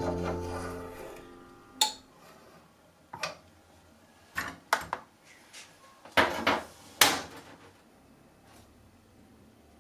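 A metal ladle clinks and knocks against an electric melting pot several times as molten white metal is scooped for casting. Acoustic guitar music fades out at the start.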